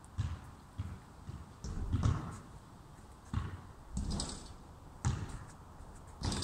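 Irregular dull thumps, one or two a second, some with a short sharper click on top.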